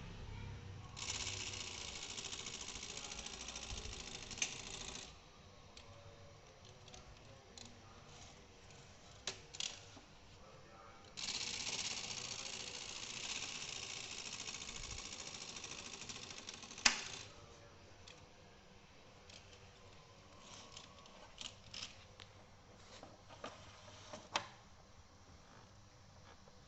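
Brother 750 TR manual typewriter being worked by hand. Two stretches of a few seconds of steady, hissy mechanical rattle each end in a sharp click, and scattered single clicks follow.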